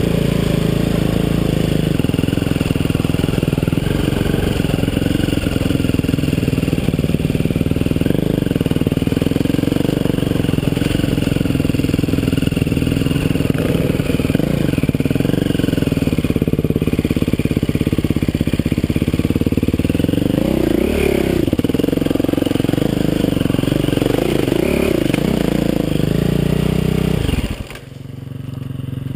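Dirt bike engine running on a trail ride, its pitch rising and falling with the throttle, with the scrape and crunch of the bike through dry leaves and brush. Near the end the engine note falls away sharply, then picks up again.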